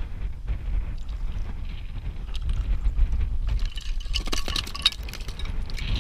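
Wind buffeting an action camera's microphone with a steady low rumble. From about three and a half seconds in, there is a spell of scraping and clicking as hands and boots move over rough rock.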